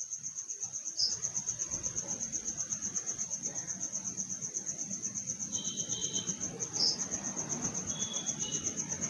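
Sahu straight-stitch sewing machine running steadily as a curved seam is stitched, a quick even clatter of about six stitches a second. A steady high-pitched trill sounds over it.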